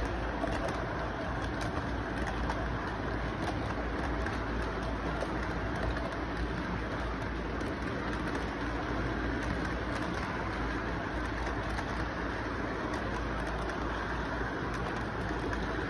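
Model freight train rolling steadily past, a constant running rumble with frequent light clicks, over steady background noise.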